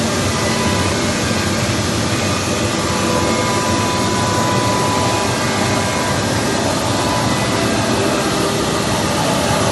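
Bulleri 3515 FPM CNC woodworking machine running: a loud, steady machine noise with a few faint whining tones held through it.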